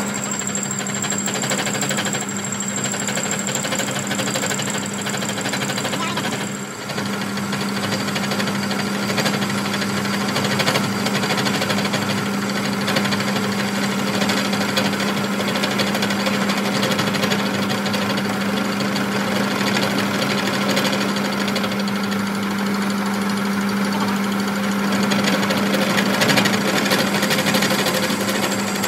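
Workshop machine running steadily: a constant hum with a dense rattling chatter over it, dipping briefly about seven seconds in.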